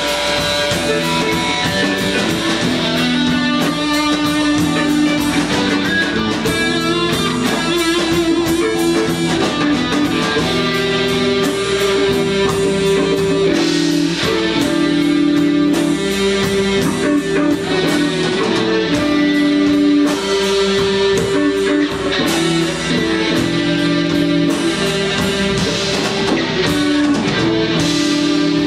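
Guitar-led instrumental music played live, with steady held notes and chords and no singing.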